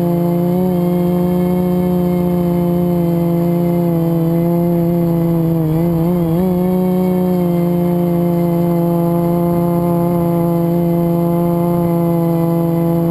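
FPV quadcopter's electric motors and propellers whining at a steady pitch, with the pitch dipping and wavering briefly about six seconds in.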